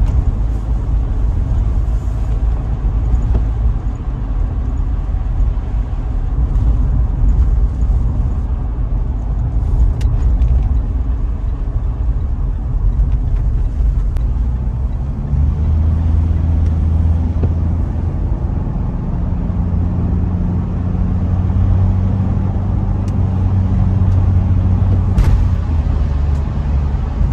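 Road noise inside the cabin of a Mitsubishi Pajero Sport 2 at speed, before any sound insulation: a steady low rumble of tyres and road. About halfway through a steady low engine drone joins it and holds.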